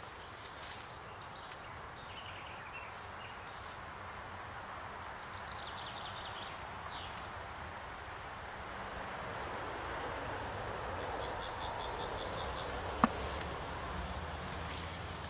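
Honeybees buzzing steadily around the hives, the hum growing a little louder in the second half, with birds chirping in short runs. A single sharp click sounds near the end.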